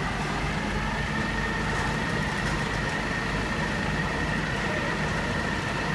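Flatbed recovery truck's engine running steadily, with a steady high-pitched whine from its loading gear as the car is drawn up the tilted bed. The whine cuts off near the end.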